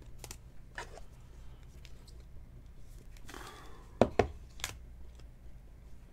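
Glossy chrome trading cards being handled: light clicks and rustles as cards are slid off a stack and shuffled in the hand, with two sharp taps about four seconds in as something is set down on the table.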